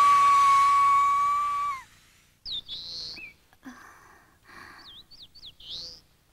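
A loud, steady whistling tone with overtones holds, then dips and cuts off about two seconds in. After a short gap, birds chirp in a few short, sweeping calls.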